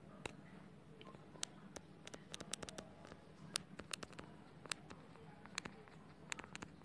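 Faint, irregular clicks and taps of a stylus on a tablet touchscreen during handwriting, a few to the second.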